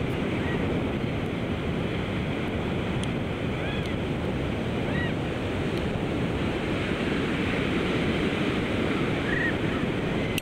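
Steady rush of surf with a few short, high chirps scattered through it.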